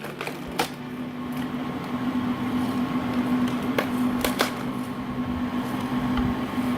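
Homemade firewood cutting-and-splitting machine running with a steady motor hum, with a few sharp knocks of wood, one about half a second in and a cluster around four seconds in.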